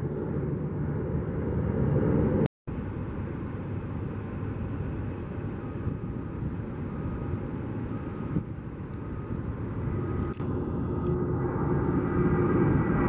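Jet airliner engines: a steady roar from a climbing jet that breaks off suddenly about two and a half seconds in, then a twin-engine airliner on its takeoff roll at full thrust, growing louder toward the end with a whine coming in over the roar.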